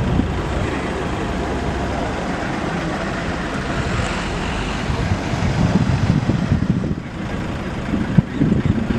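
Boeing 747 jet engines running with a steady rumble and hiss, wind buffeting the microphone.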